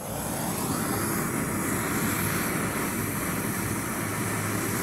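Propane torch burning steadily just after lighting, its flame blowing into a cast iron ladle in a small foundry: a steady rushing hiss that swells up over the first half-second and then holds even.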